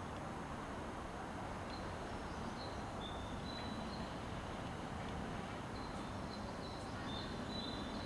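Steady outdoor background noise, with faint short high chirps recurring every second or so.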